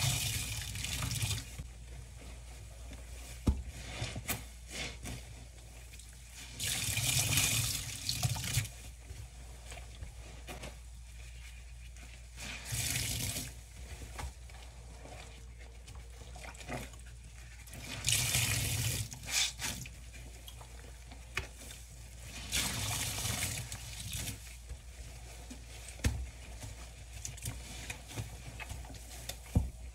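Soaked, sudsy bath sponges squeezed by rubber-gloved hands, the soapy water gushing and splashing into a stainless steel sink in about five bursts a few seconds apart. A few sharp clicks come between the squeezes.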